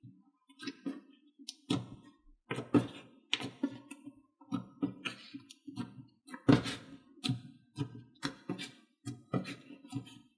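Hands kneading and squishing a firm clay slime, making irregular wet clicks and pops, about two a second.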